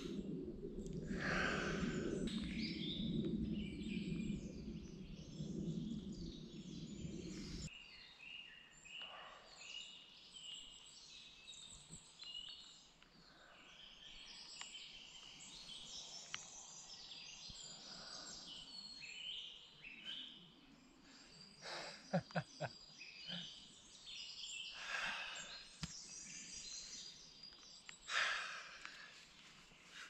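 Forest birdsong, many small birds chirping and calling, with a few deep breathy sighs from a person now and then. A low rushing noise sits under the first eight seconds and cuts off abruptly.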